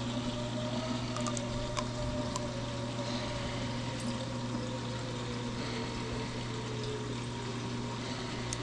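Steady hum and water rush of a running reef aquarium's pumps and circulating water, with a few faint clicks as a syringe and plastic test vial are handled.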